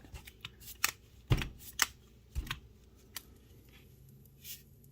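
A few sharp clicks and knocks from small hard objects being handled, about five spread over three seconds, then a brief soft rustle near the end.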